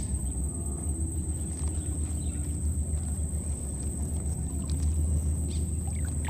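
A steady low rumble with a constant high-pitched whine running above it.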